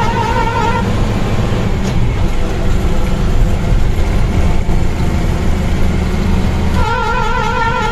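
Engine and road noise from inside a moving vehicle: a steady low drone with rushing noise. Background music plays for the first second or so, drops out, and comes back near the end.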